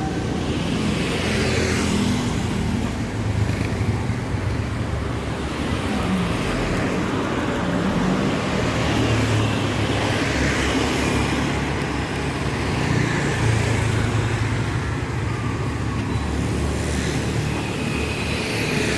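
Street traffic: motor vehicles passing one after another, their engines and tyres making a continuous steady noise.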